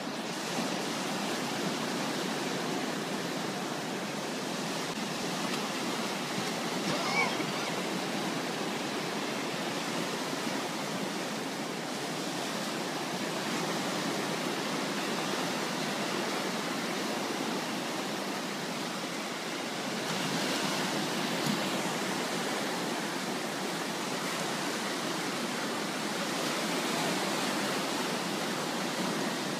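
Surf: small waves breaking and washing in as a steady rush, swelling a little twice in the second half.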